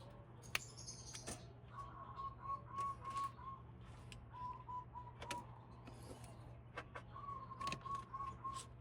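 A bird calling in runs of five or six short, quick, evenly spaced notes, three times, with scattered sharp clicks and a steady low hum underneath.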